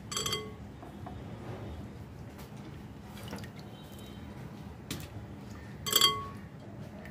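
A hand squeezing and swishing soaked tamarind in water in a glass bowl: liquid sloshing, squelching and dripping. Twice a sharp clink against the glass bowl rings briefly, just after the start and louder about six seconds in.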